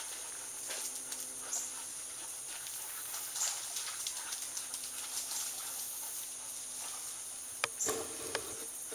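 Dogs close by, breathing and moving about, with scattered faint ticks and a sharper tick near the end.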